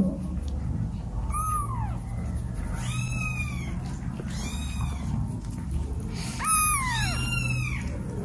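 Kittens meowing about five times in short, high-pitched calls, each arching up and falling away at the end.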